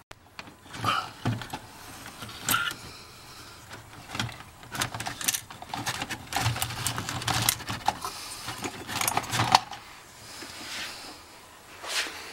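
Irregular clicks and light metallic rattles of hands working the wiring and speedometer loose behind a VW Beetle's dashboard.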